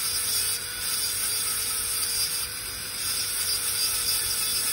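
Dental handpiece running at high speed with its bur grinding a plastic typodont molar: a steady, high-pitched whine and hiss that swells and dips slightly as the bur cuts. This is the occlusal reduction of the mesiolingual cusp in a full-crown preparation.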